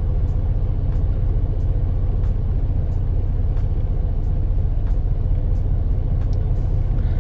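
Freightliner Cascadia's diesel engine idling steadily, a low rumble heard from inside the cab, with a faint tick about every two-thirds of a second.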